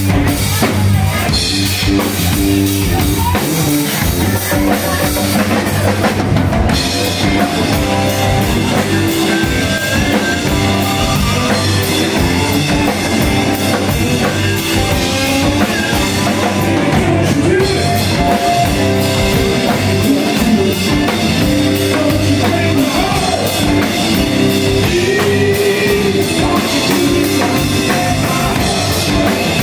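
Live rock band playing loudly: a drum kit and hand drums keep a steady beat under electric guitars.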